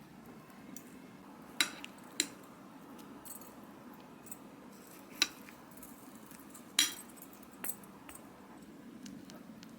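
Kitchenware clinking: about five sharp, separate clinks and taps of utensils on dishes, over a low steady background hum.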